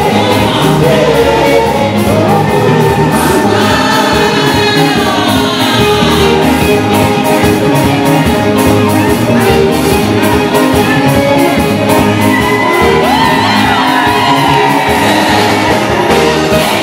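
Loud dance music with singing over a steady beat.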